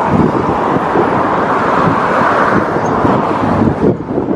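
Wind buffeting the microphone over the steady rush of road traffic, with irregular low gusts; it eases a little near the end.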